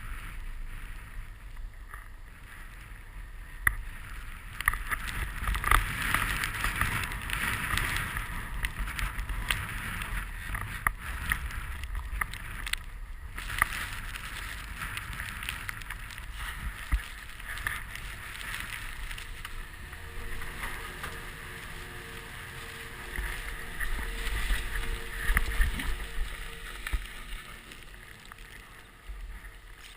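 Snowboard sliding and carving through deep fresh powder: a rushing hiss that swells and fades with the turns, with wind buffeting the microphone and occasional sharp knocks.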